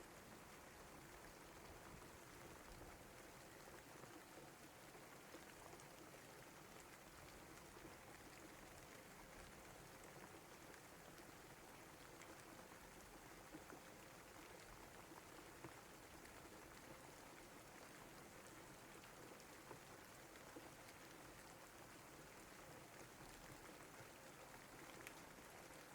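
Faint, steady rain falling, with a few scattered drop ticks.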